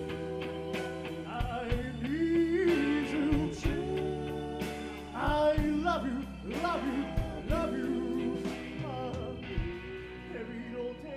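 Live rock band playing a song: a lead vocal sung over electric guitars, keyboard and a drum kit keeping a steady beat, easing off a little near the end.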